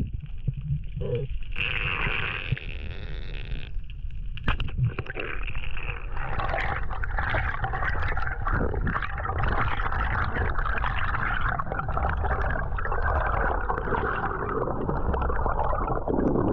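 Underwater sound picked up by a diver's camera: a steady low rumble of water moving past the housing, joined about six seconds in by dense crackling and fizzing that continues to the end.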